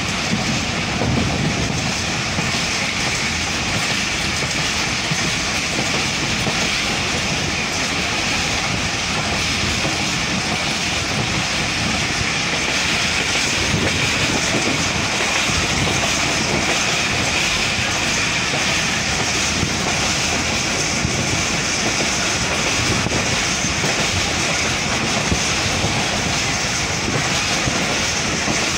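Pakistan Railways' Business Express passenger train running at speed, heard from its coach window: the steady, loud rumble and rattle of the wheels on the track, with scattered clicks.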